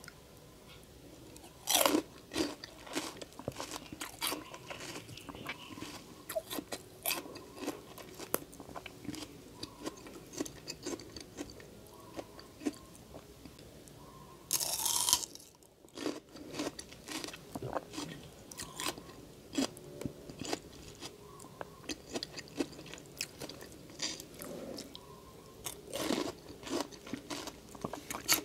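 Close-miked biting and crisp chewing of raw bilimbi (kamias) fruit topped with coarse salt. A loud bite comes about two seconds in, then steady crunchy chewing. There is a brief hissing burst around the middle, and another run of bites and chewing near the end.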